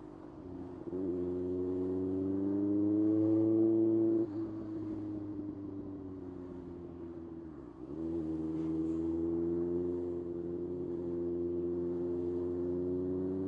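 Kawasaki ZX-6R inline-four engine: the revs rise under throttle for about three seconds, then the throttle is shut suddenly and the revs fall slowly. About eight seconds in it pulls again and runs on with a steady, slowly rising note.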